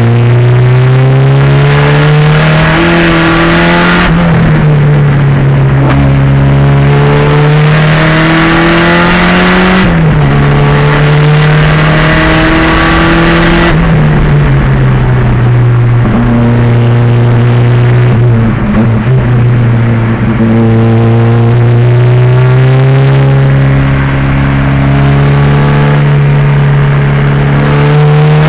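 Loud turbocharged 2.0-litre race car engine in the 1987 Pontiac Fiero at full racing pace, its pitch climbing under acceleration and dropping sharply at gear changes about 4, 10 and 14 seconds in. It falls slowly through the middle and climbs again near the end.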